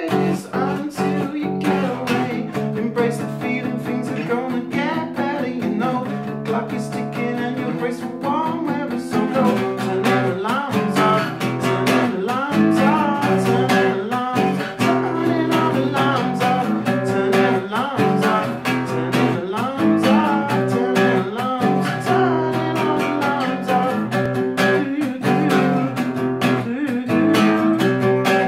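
Acoustic guitar strummed and picked, with a man singing over parts of it.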